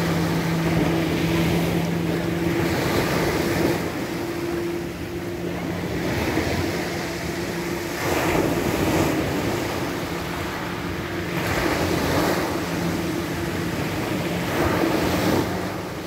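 Small sea waves breaking and washing up a pebble beach, the surf swelling in surges every few seconds. A steady low hum of a motorboat engine runs underneath.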